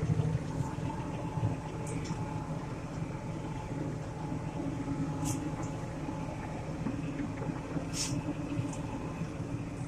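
John Deere 8770 tractor's engine running steadily, a low drone heard from inside the cab, with a couple of faint ticks about five and eight seconds in.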